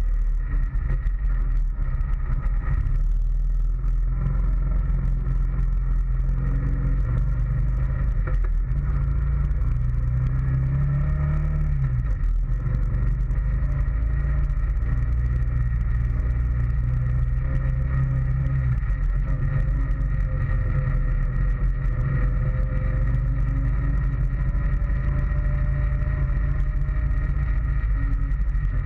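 2013 Honda Foreman ATV's single-cylinder four-stroke engine running while riding, heard close from the front rack. Its pitch rises with throttle about ten seconds in, falls away sharply a second later, and drops again a little before the two-thirds mark.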